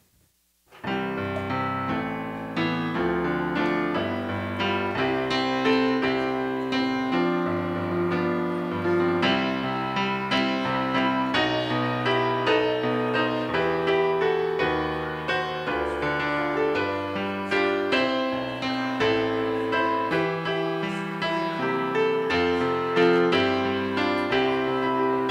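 Solo piano music played on a keyboard, starting suddenly about a second in after a moment of near silence, with chords and a melody line.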